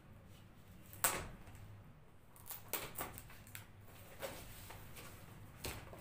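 Ballpoint pen tip scraping and picking at clear packing tape on a microphone's cardboard box, trying to cut it open without a cutter. A sharp rasp comes about a second in, followed by several shorter scratches and taps with handling of the box.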